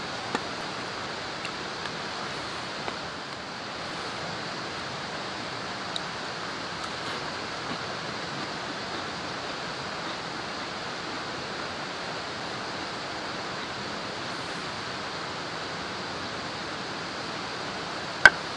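A steady rushing noise with a few faint clicks, and one sharp click near the end.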